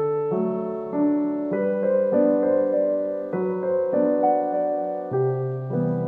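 Background piano music: slow held chords over a bass note, changing about once a second.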